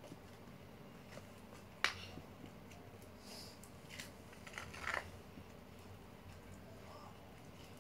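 Slime and its small plastic containers being handled: one sharp click about two seconds in, then a few softer clicks and crackles about four to five seconds in.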